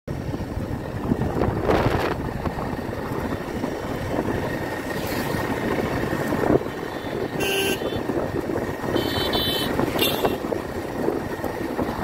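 Motorcycle running on a ride, a dense steady rumble of engine and road noise, with a few short high-pitched sounds partway through.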